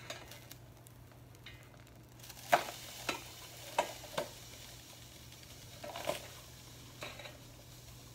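Kitchen knife scraping and clicking against a stainless steel frying pan as it pries loose a pizza stuck to the pan bottom: about six short sharp scrapes and knocks spread over several seconds.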